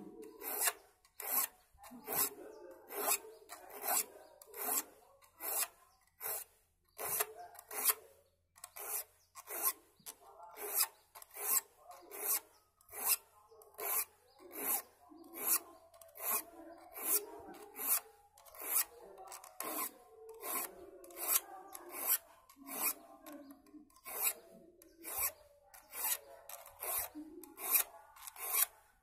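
A metal file rasping across the teeth of a steel hand saw as the saw is sharpened. It is a steady rhythm of short strokes, about two a second, with occasional brief pauses.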